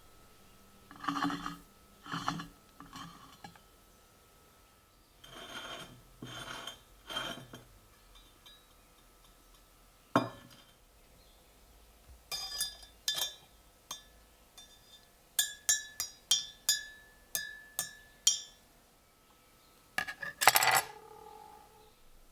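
Small metal parts clinking and scraping: a few soft scrapes and rubs, then a run of sharp clinks with a brief ring, and a louder ringing clink near the end.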